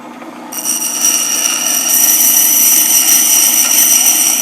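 Craftsman utility sharpener running on its water-fed wheel, with a steel edge pressed against the wheel from about half a second in. The grinding makes a loud, steady, high-pitched scraping whine over the motor's low hum.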